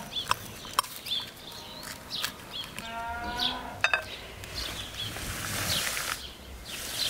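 A knife cutting a baked flatbread on a glass dish, with scattered sharp clicks of the blade against the glass and a stretch of rustling about five seconds in. Birds chirp throughout, and a farm animal gives a short call about three seconds in.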